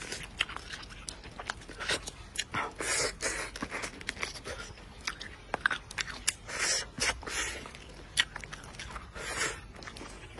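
A person eating chicken from a chicken soup: chewing and biting, with many sharp wet mouth clicks and short noisy smears.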